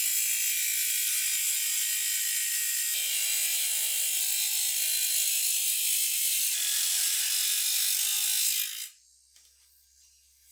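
A small handheld motorised tool buzzing with a rapid rattle, steady in level, cutting off suddenly near the end.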